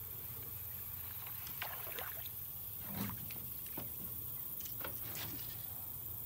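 Small boat sounds on the water: scattered short ticks and light splashes, with one dull knock about three seconds in, over a steady low rumble.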